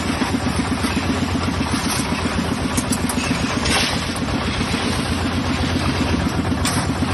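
An engine running steadily at an even idle with a fast, regular pulse.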